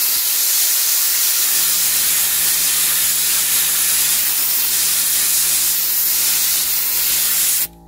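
Compressed air hissing steadily from a flute-style air chuck blown into a cylindrical air filter element to clean the dust out of it, cutting off suddenly near the end. A steady low motor hum joins about a second and a half in.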